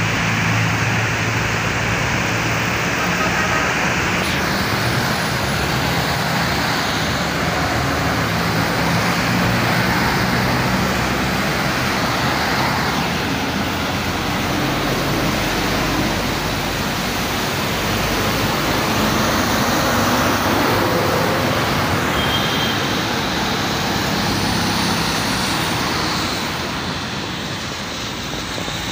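Road traffic on a rain-soaked road: a steady hiss of tyres on wet asphalt and falling rain, with passing engines making a low hum through much of it.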